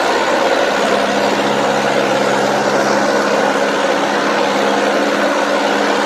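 Mahindra tractor's diesel engine running hard and steady under heavy load, straining to pull a trolley of about 200 quintals up a soft slope.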